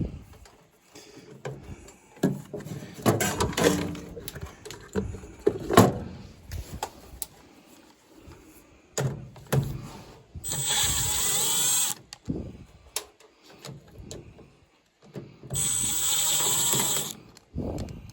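Cordless drill-driver running in two short bursts of about a second and a half each, in the second half, amid handling clatter and knocks of tools and metal parts.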